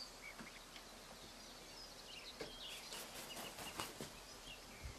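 Faint outdoor ambience with small birds chirping briefly here and there in the background, and a few soft clicks about three to four seconds in.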